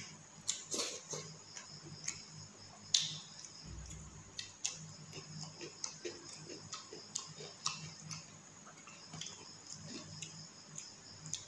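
Close-up eating sounds: chewing and lip-smacking as a mouthful of rice and fish is eaten, heard as irregular sharp clicks, over a faint steady hum.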